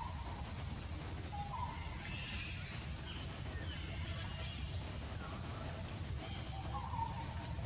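Forest ambience: a steady high-pitched insect drone, with short bird calls repeating every second or so, over a low steady rumble.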